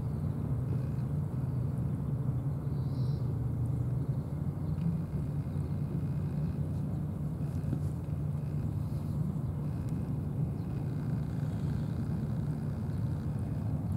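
Steady low outdoor rumble with no clear events.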